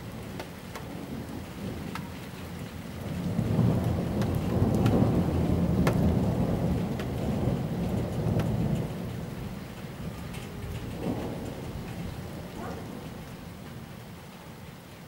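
Thunder from a supercell thunderstorm: a low rumble that swells about three seconds in, stays loud for several seconds, then fades away. Steady rain runs underneath, with scattered sharp ticks of drops landing close by.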